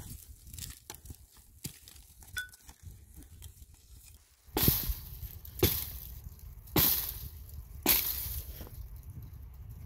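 Four sharp cracking strikes, about a second apart, starting about halfway through.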